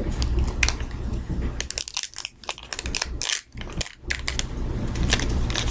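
Foil blind-bag packet crinkling and crackling in the hands as it is worked and pulled open, a dense run of sharp crackles that thins out for a moment in the middle.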